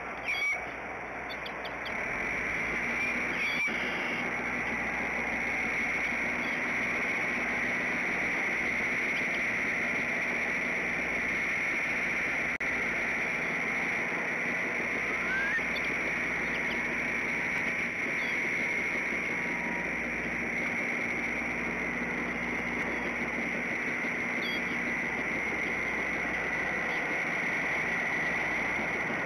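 Steady outdoor ambience at a bald eagle nest: an even hiss with a high, steady drone, broken by a few faint bird chirps.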